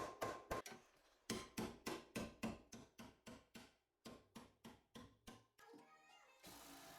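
Rapid hammer blows, about four or five a second, beating on a stubborn car part to knock it loose. The blows pause twice briefly and stop near the end, when a steady hiss takes over.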